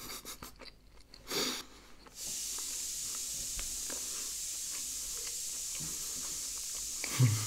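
A person chewing food close to the microphone, with faint soft mouth clicks. A steady hiss comes in about two seconds in, and there is a brief vocal sound near the end.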